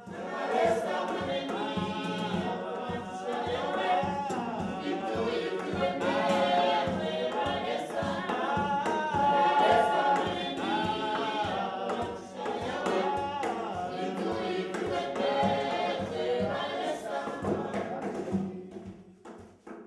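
A group of voices singing together in harmony over a steady beat. It starts suddenly and fades out near the end.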